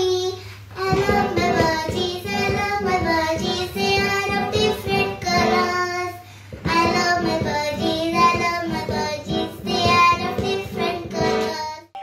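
A young girl singing with backing music and a steady beat; the singing and music break off briefly about six seconds in, then carry on.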